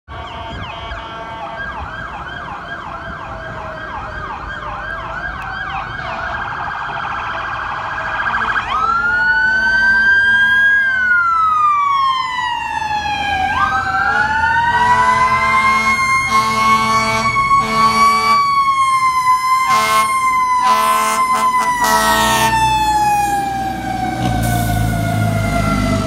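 Fire apparatus sirens: a fast warbling yelp, then from about a third of the way in a wail that sweeps up and slowly falls in pitch. A series of short horn blasts sounds over the wail in the middle, and heavy engine rumble builds near the end as a vehicle passes close.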